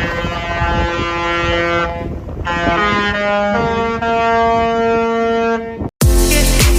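Cruise ship's horn sounding a series of long loud tones that change pitch from one note to the next, some overlapping. It cuts off abruptly near the end, and music with a steady beat starts.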